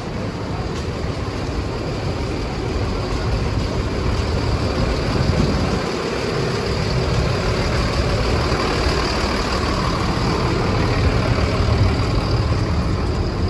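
Diesel bus engines idling, a steady low rumble with a faint high whine over it.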